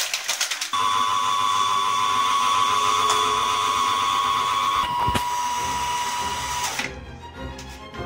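A small electric kitchen grinder runs for about six seconds with a steady whine. Its pitch drops slightly about five seconds in, and it then cuts off.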